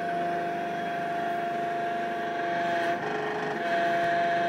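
Palfinger loader crane's engine-driven hydraulics running steadily under load, a machine drone with a steady whine, as the grab lifts a load of manure. The sound shifts briefly about three seconds in and then runs a little louder.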